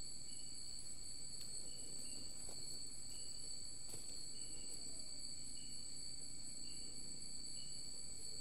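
Night insects in forest: a steady high-pitched buzzing drone at several pitches, with short chirps repeating roughly once a second, and a couple of faint clicks.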